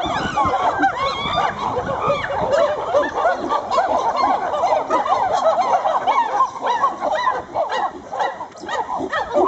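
A group of chimpanzees calling: many short, overlapping hoots and barks, each rising and falling in pitch, in a dense chorus.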